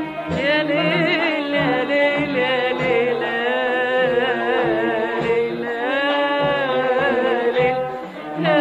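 A woman singing a wavering, ornamented Arabic vocal line over musical accompaniment, with a brief lull between phrases near the end.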